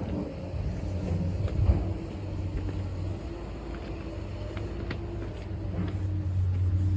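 Hitachi 360 excavator's Isuzu diesel engine running with a steady low hum. A couple of short knocks come about one and a half seconds in, and the sound grows louder near the end.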